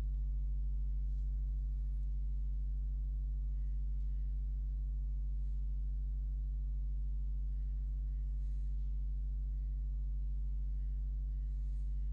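Steady low electrical hum with a stack of overtones, unchanging throughout: mains hum picked up by the recording.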